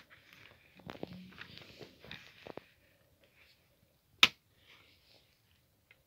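Small objects being handled: light rustling and tapping, then a single sharp click about four seconds in.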